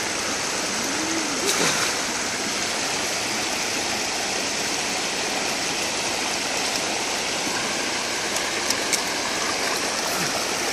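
Shallow stream water pouring over a log laid across the stream, a steady rushing flow, with a few faint brief clicks.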